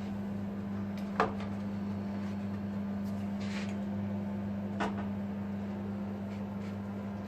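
A cat chewing corn: two sharp crunches, one about a second in and a weaker one near five seconds, with a soft rustle between them. A steady low hum runs underneath.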